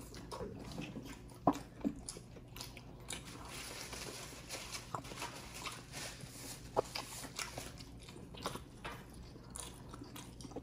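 Close-up mouth sounds of people eating roast chicken with their hands: chewing, lip smacks and finger-sucking, heard as irregular soft wet clicks with a few louder smacks.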